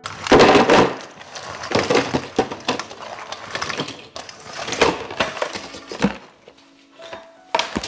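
Crabs tipped out of a stainless steel bowl into a plastic tub: a loud clattering slide of shells at first, then scattered knocks and rustles as the rest are pushed in by hand, with the bowl clinking.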